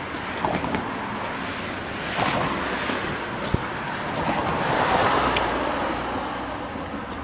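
Road traffic passing: a steady rush of car tyres and engines, swelling as vehicles go by close, loudest about five seconds in.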